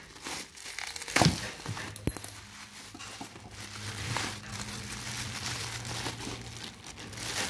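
Bubble wrap and clear plastic crinkling and crackling as hands pull it open, in irregular bursts, with one sharp crackle about a second in.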